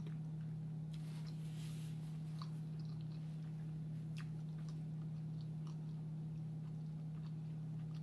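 Close-up chewing and biting on a seafood egg roll: scattered short mouth clicks and crunches over a steady low hum.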